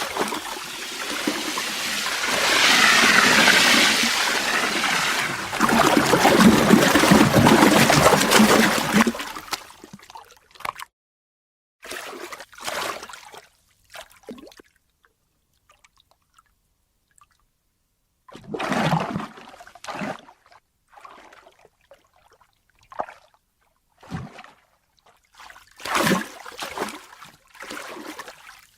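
Ocean water: a wave rushing and washing for about nine seconds, then a few short splashes and slaps separated by silent gaps.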